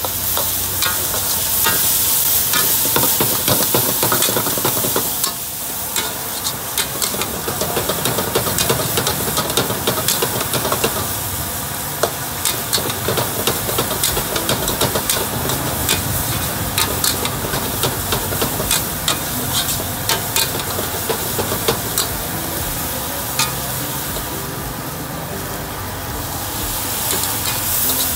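Metal ladle scraping and clanking against a steel wok as pieces of meat are stir-fried, over a steady sizzle of hot oil. The sizzle grows louder near the end as the wok steams.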